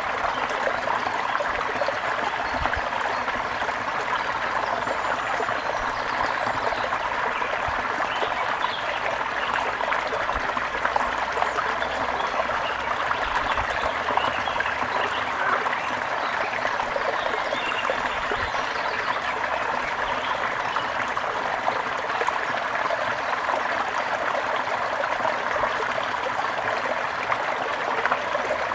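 Shallow brook babbling and trickling steadily over stones, with a few faint high bird chirps in the middle.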